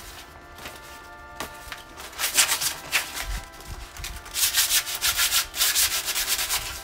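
Sandpaper rubbed by hand along the steel tubes of a bicycle frame in quick back-and-forth strokes, sanding the old paint and rust down toward bare metal before repainting. A short spell of strokes comes about two seconds in, and a longer, louder one follows from about four seconds.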